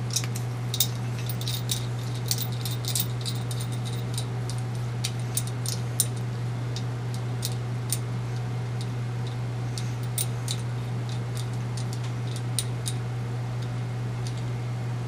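Light, irregular metallic clicks and ticks of a beer tap shank and its nut being handled and unthreaded, thick in the first three seconds and sparser after. A steady low hum runs underneath.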